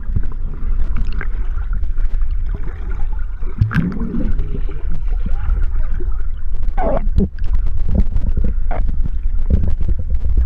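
Muffled underwater sound of a camera held beneath the sea's surface: a loud, steady low rumble of water moving around the camera housing, with a few gurgles and bubbling.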